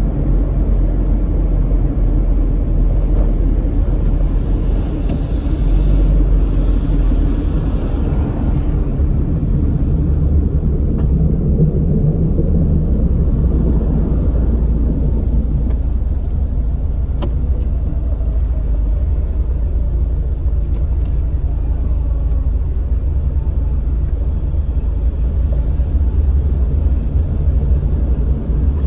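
Heavy city road traffic: a steady low rumble of engines and tyres. A louder hiss from a passing vehicle swells and fades around the middle.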